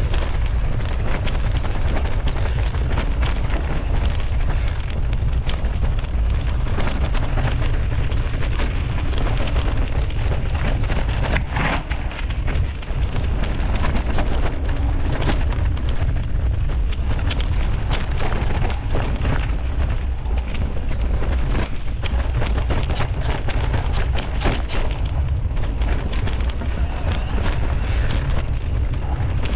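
A mountain bike riding over a rough dirt trail: the tyres crackle over gravel and roots and the bike rattles, with a steady wind rumble on the GoPro's microphone.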